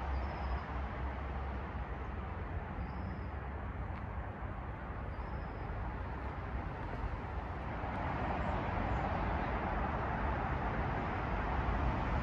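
Outdoor ambience of wind rumbling on the microphone and the hiss of traffic, swelling about two-thirds of the way through, with three faint high bird chirps in the first half.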